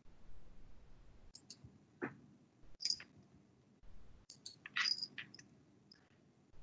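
Faint, scattered clicks and short taps in a few small clusters, over a quiet low hum.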